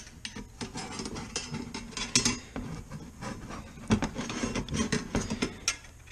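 Sheet-metal oil pan baffle plates and rivets being handled and fitted together by hand: irregular light metal clinks and knocks with scraping and rubbing between them.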